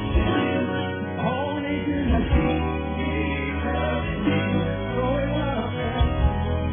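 Music: a song with singing over instrumental backing.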